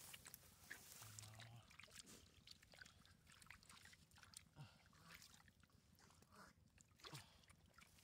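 Near silence, with faint scattered splashes and sloshing of shallow muddy water as a plastic basket is pushed through it to scoop up fish.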